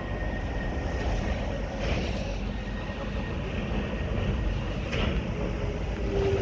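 Train running on the track: a low, steady rumble with a couple of faint clicks, building just as it ends.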